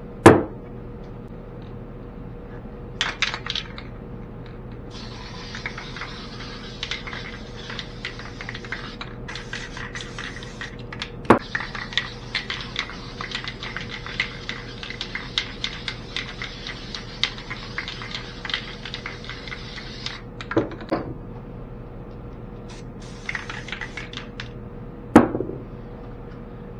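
Aerosol can of Krylon spray paint hissing in long sprays, with a short break, as the paint is laid on the water for a hydro dip. There are short rattly clicks before and after the sprays, and a sharp knock just after the start and another near the end.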